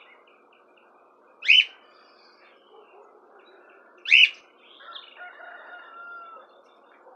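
Caged papa-capim seedeaters calling: two loud, short up-swept notes about two and a half seconds apart, followed by softer twittering and a thin drawn-out whistle.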